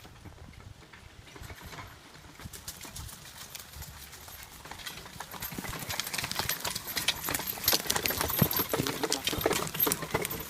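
Horse's hooves clopping as it walks pulling a log-loading rig, with short knocks that grow louder and more frequent in the second half.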